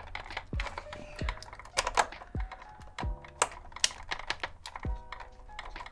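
Irregular light clicks and taps of small plastic and metal parts being handled while a radio is taken apart. Quiet background music with a low beat runs underneath.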